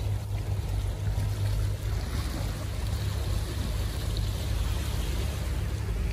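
Seaside ambience: a steady low rumble of wind on the microphone over waves washing against the shore rocks.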